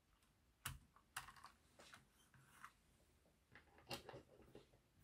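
A handful of small, sharp plastic clicks and taps, irregularly spaced, as an OO gauge model tender is coupled to its locomotive and settled onto the track.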